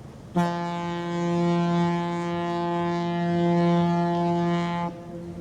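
Container ship's horn giving one prolonged, steady, deep blast of about four and a half seconds, the signal a ship sounds when approaching a blind bend. It cuts off sharply, leaving a faint echo.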